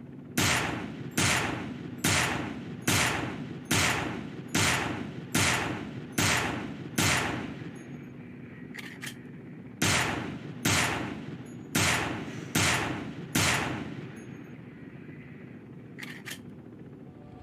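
Heavy handgun firing single shots, evenly spaced a little under a second apart, each shot ringing off. There is a run of nine shots, then a pair of short clicks, five more shots, and another pair of clicks near the end.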